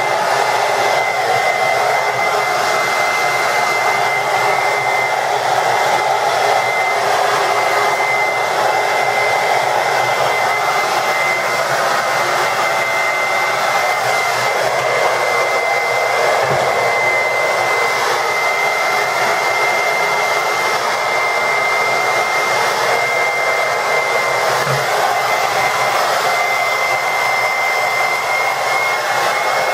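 Sweet Life SW-DF801 1875 W ionic hair dryer running steadily: a continuous rush of blown air with a steady high whine.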